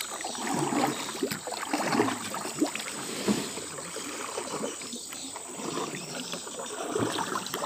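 Wooden paddle strokes pulling through river water beside a canoe, with irregular splashing and water washing along the hull, and a couple of sharp knocks.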